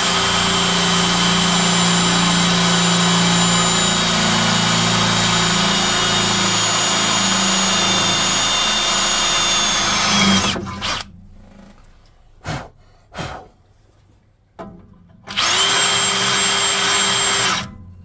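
Cordless drill boring a pilot hole out to a quarter inch through a metal bracket. It runs steadily for about ten seconds, stops, gives two short bursts, then runs again for about two seconds.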